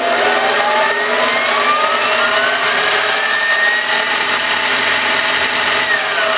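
ENCO 7x10 mini lathe running in reverse in high range, its motor and drive whine climbing steadily in pitch for about four seconds as the variable speed is turned up toward top speed, then holding steady before dipping slightly near the end.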